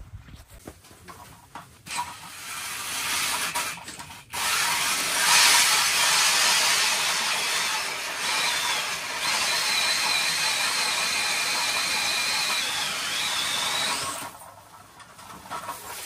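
Power ice auger boring a hole through lake ice: a steady motor whine over a dense rush of noise. It starts about two seconds in, grows louder about four seconds in, and cuts off near the end.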